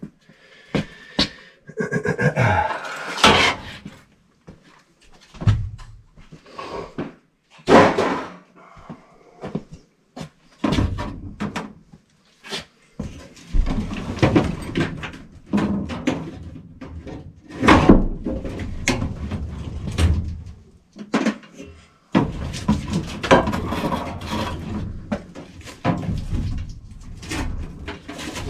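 Irregular sheet-metal knocks, clanks and scrapes from the furnace's coil cabinet and its loose metal panels being handled and shifted.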